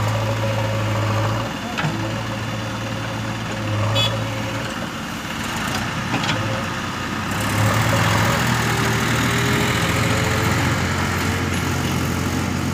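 Diesel engine of a JCB 3DX backhoe loader running while its bucket digs soil, the engine note dropping and rising again as the hydraulics take load, with a tractor engine running alongside. A few short knocks sound over the steady hum.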